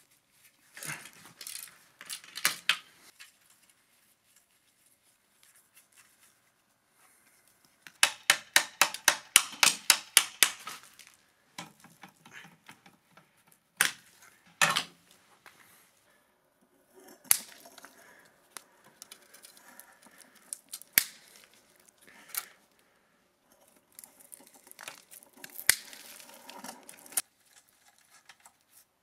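Hand tools clicking and clinking against rusty metal parts of a motorcycle frame during disassembly: scattered single sharp clicks, with a quick, even run of about five clicks a second lasting around three seconds near the middle.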